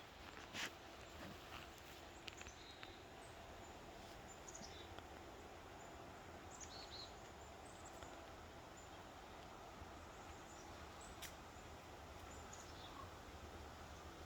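Near silence: faint outdoor ambience with a few short, faint high bird chirps and a couple of light clicks, the clearest about half a second in.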